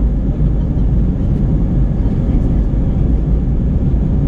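Airbus A320 on its takeoff roll, heard from inside the cabin: a steady, loud jet-engine noise over a deep rumble from the runway.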